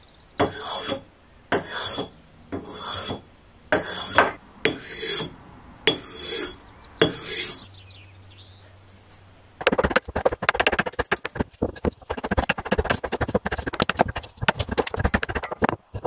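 A blade drawn across a whetstone in about seven long rasping strokes, roughly one a second. After a short pause, a hatchet hews and shaves a wooden handle blank in rapid chopping strokes, several a second.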